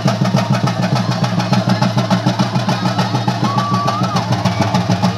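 Chenda drums playing a fast, even roll, about six or seven beats a second, for a theyyam performance, with a brief wavering high note a little past halfway.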